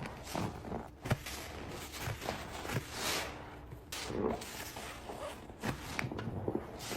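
A soaked sponge squeezed by hand: a string of irregular wet squelches, with a short squeak among them.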